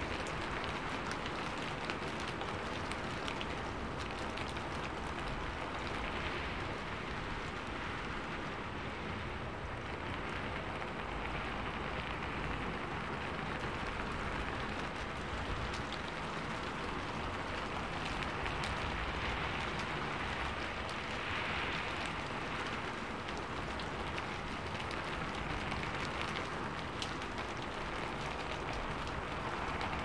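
Steady rain falling: an even, unbroken hiss with scattered single drops ticking through it.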